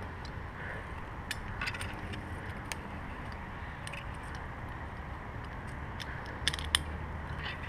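Climbing rope and metal climbing hardware being handled: scattered small clicks and clinks over a low steady rumble.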